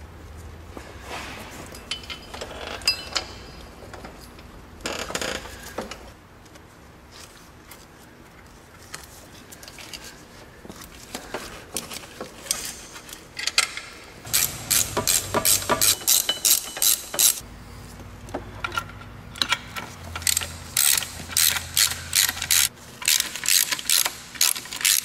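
Hand socket ratchet clicking in quick runs of about four clicks a second, in two spells in the second half, as the bolts at the front of the air-conditioning compressor are turned. A few light clinks and knocks of tools and parts come before.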